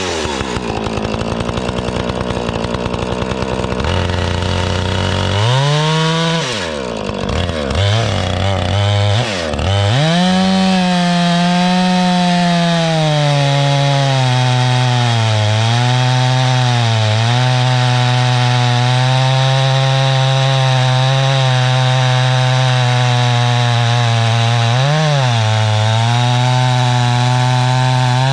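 Gas chainsaw with a freshly sharpened chain, running at low speed at first, revved up and down a few times, then held at full throttle cutting wood, its pitch dipping briefly a few times.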